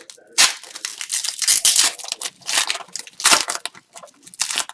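Foil wrappers of hockey card packs crinkling and tearing as they are ripped open and handled, in a series of loud rustling bursts, with cards being shuffled between them.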